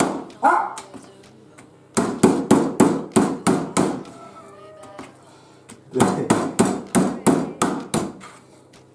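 A meat tenderizing mallet pounds slices of raw meat on a plastic cutting board in two runs of quick blows, about three a second. Between the runs a dog whines briefly.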